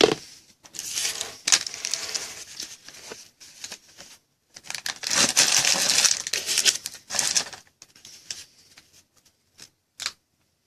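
A trading-card pack's foil wrapper being torn open and crinkled, in two long spells of ripping and rustling, then a few light ticks near the end.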